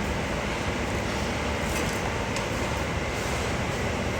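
Steady low rushing background noise with a couple of faint light clicks in the middle.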